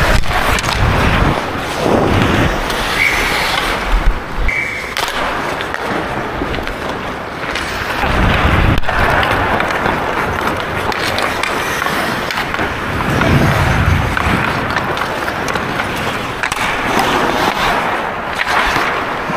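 Hockey skate blades scraping and carving on ice, heard from a camera worn by a skating player, with rushing noise and a sharp knock about four seconds in.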